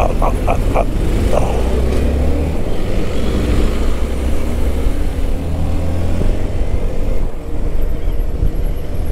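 Hero Xpulse 200 4V's single-cylinder engine running as the bike rides in slow traffic, its pitch gliding slowly as the revs change, over a steady low rumble, with other road traffic around it.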